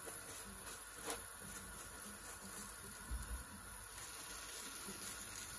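Dal puri roti frying in a lightly oiled frying pan: a faint, steady sizzle, with one sharp click about a second in.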